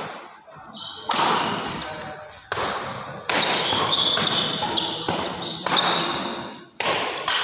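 A badminton rally: rackets strike the shuttlecock about six times, roughly once a second, each hit a sharp crack that rings on in the hall.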